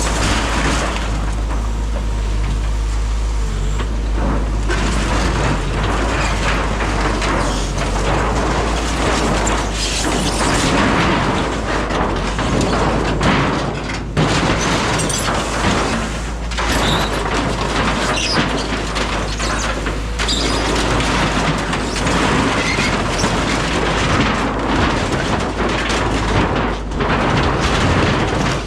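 Caterpillar 306 mini excavator's engine running steadily while the machine crushes and tears apart a mobile home's structure, with continual irregular cracking, crunching and splintering of wood and metal.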